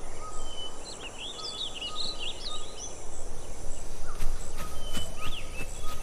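Outdoor woodland ambience: small birds chirping in a quick cluster of twittering notes, then a few more near the end, over a steady background hiss. A few faint ticks near the end.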